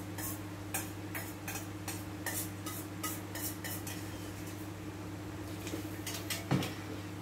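Metal spoon clicking and scraping against a stainless steel bowl while eating, about two to three quick ticks a second for the first few seconds, then only a few fainter ones. A steady low hum runs underneath.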